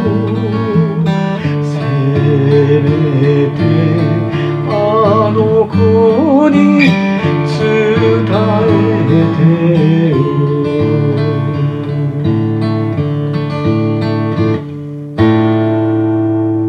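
Steel-string acoustic guitar picked in an accompaniment under a man's singing voice with wavering held notes. About fifteen seconds in, one final strummed chord rings out and fades: the song's ending.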